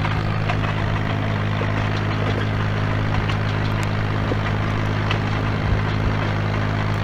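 International 500C crawler dozer's engine running steadily while the machine pushes snow, a constant low drone with a few faint clicks over it.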